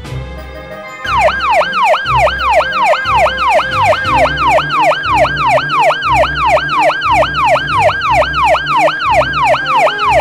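Emergency-vehicle siren in a fast yelp: rapid sweeps falling in pitch, about three a second. It starts about a second in and cuts off abruptly.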